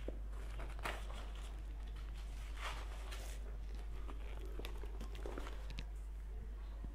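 Paper page of a spiral-bound notebook being flipped over and smoothed down by hand: faint rustles and small clicks, the clearest about a second in and again around three seconds, over a steady low hum.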